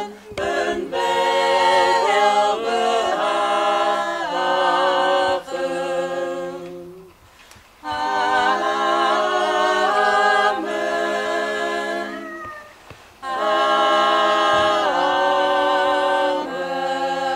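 A small choir of women and men singing a cappella, with brief pauses between phrases about seven and thirteen seconds in.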